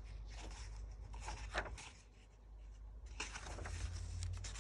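Pages of an old hardcover book being turned by hand: a few short paper rustles and swishes, the longest a little after three seconds in.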